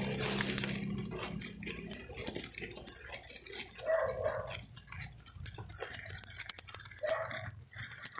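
A dog barks twice, about three seconds apart, over footsteps on pavement.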